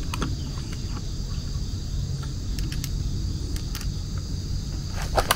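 Steady high-pitched insect chorus over a low rumble, with a few scattered clicks and a sharper knock near the end.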